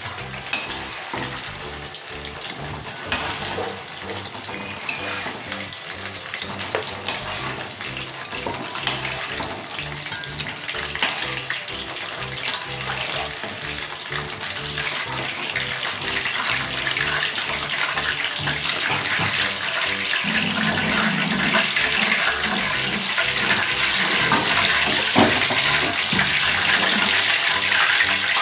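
Hot oil sizzling and crackling in a kadai as food fries, a steady hiss that grows louder through the second half. Soft background music runs underneath.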